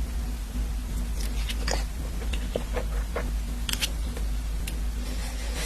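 Close-up eating sounds of a person chewing a Spam rice bowl, with scattered small clicks, over a steady low hum.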